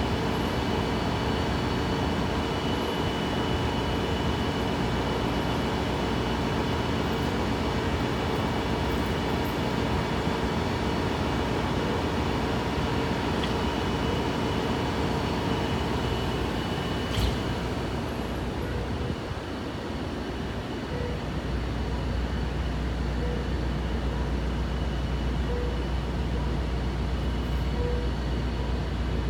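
Siemens Charger SC-44 diesel-electric locomotive's engine running steadily, a continuous hum with several steady tones. There is a single sharp click about two-thirds of the way in, and near the end a deep low rumble comes in and holds.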